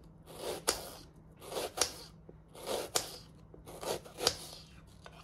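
Kitchen knife slicing a red onion into thin half-moons on a cutting board: four slow cuts about a second apart, each a short crunch through the onion ending in a tap of the blade on the board.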